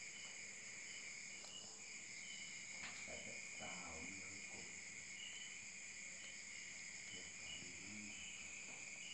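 Night insects, crickets, chirping faintly and steadily as several high-pitched voices at once, one of them in a regular pulsing rhythm.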